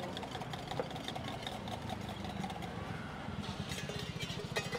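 Engine idling steadily with a fast, even putter, with light clicks above it.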